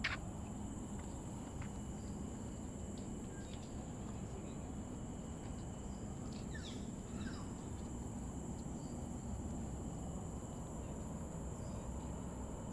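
Forest ambience: a steady, high insect drone over a low background rumble, with a few brief bird chirps about halfway through.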